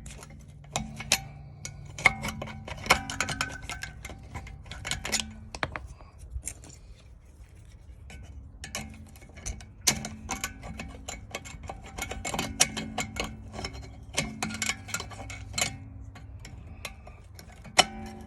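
Irregular sharp metallic clicks and clinks of hand tools and brake hardware as a rear brake caliper bracket is unbolted and removed.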